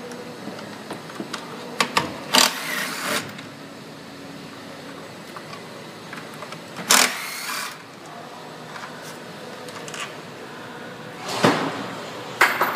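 Compact cordless driver spinning off 10 mm nuts from the air box studs in about four short bursts, each under a second and rising in pitch as the motor spins up. Small clicks and handling noises come in between.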